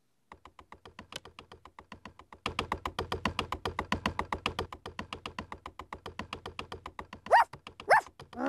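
Cartoon woodpecker pecking a tree trunk: fast, even tapping at about ten taps a second, with three short rising squeaks near the end.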